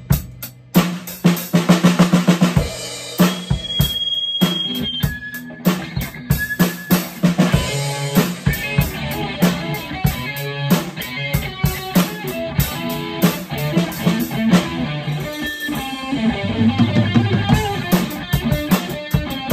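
A drum kit played with sticks, with bass drum, snare and cymbal hits coming thick and fast, together with an electric guitar, as a band jams.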